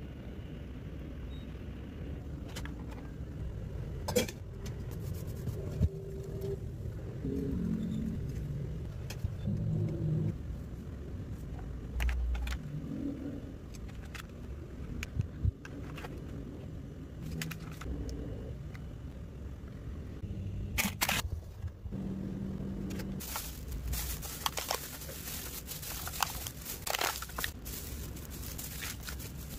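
A low, steady background rumble with scattered sharp clicks of handling. Near the end comes a stretch of crackling from thin plastic food-handling gloves and the plastic mould being worked.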